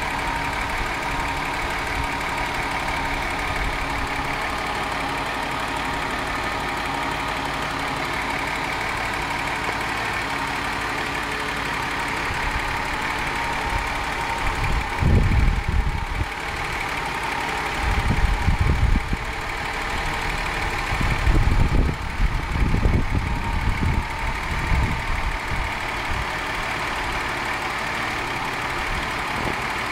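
Ford Scorpio's 2.9-litre 24-valve Cosworth V6, fitted with BOB camshafts, running at a steady idle. Irregular low rumbles break in over the middle stretch.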